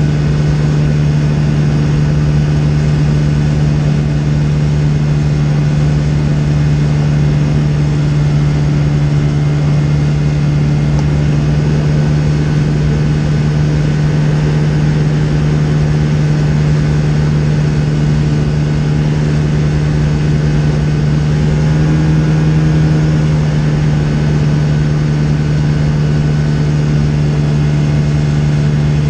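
Skyranger microlight's engine and propeller droning steadily in flight, heard from inside the cockpit. The engine note rises slightly and gets a little louder for about a second around three-quarters of the way through, then settles back.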